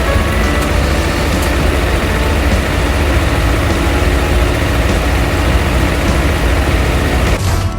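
Heavy vehicle engine running steadily with a deep rumble, cutting off suddenly near the end.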